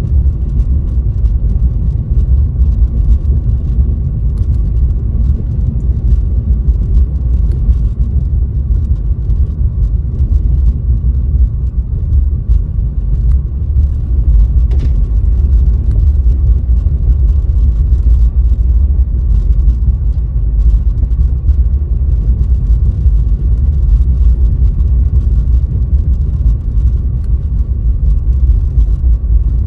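Car driving, heard from inside the cabin through a dashcam: a steady low rumble of road and engine noise, with faint scattered ticks over it.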